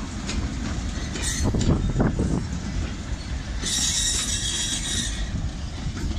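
A slow goods train of four-wheeled freight wagons rolling past, wheels rumbling and clacking over the rail joints with scattered knocks. A hiss rises about halfway through and lasts a second or so.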